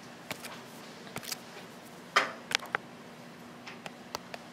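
About ten light clicks and taps scattered irregularly over four seconds, the strongest about two seconds in, over a faint steady hum.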